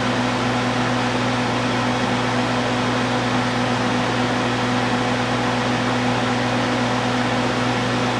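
Steady whirring noise with a low hum from cooking going on at the stove, loud enough to be called kind of noisy.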